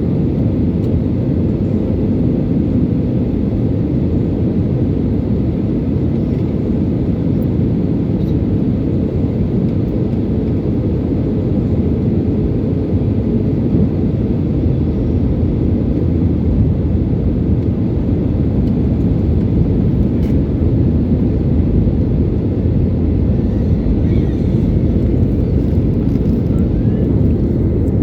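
Steady low rumble of airliner cabin noise from the engines and airflow, heard from inside the passenger cabin.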